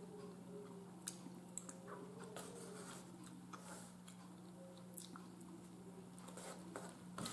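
Quiet chewing of smoked turkey leg and vegetables, with a few sharp clicks of a fork against a plate, over a faint steady hum.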